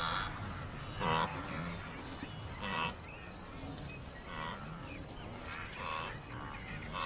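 Grazing herd animals calling in a series of short, pitched grunting cries, about six in the stretch, over a steady high chirring of crickets.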